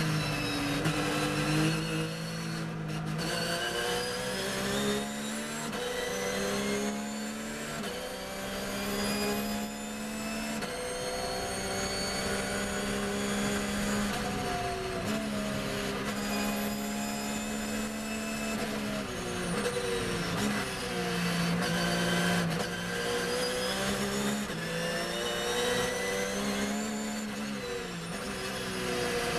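Porsche 911 GT3 R's flat-six race engine heard from inside the cockpit at racing speed, its pitch climbing and stepping down at each upshift. It is held high and steady for a few seconds mid-way, then falls away with downshifts under braking and climbs again out of the corner.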